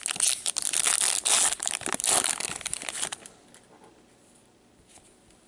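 Plastic trading-card pack wrapper crinkling and tearing as gloved hands open it, a dense crackly rustle for about three seconds that then fades to a faint hush.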